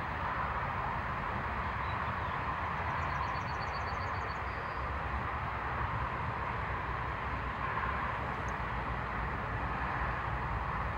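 Steady outdoor background rumble, with a small bird's brief high, rapid trill of about a dozen notes about three seconds in.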